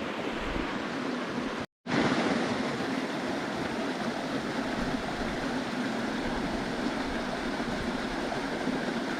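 Stream water rushing steadily, with a split-second dropout to silence just under two seconds in.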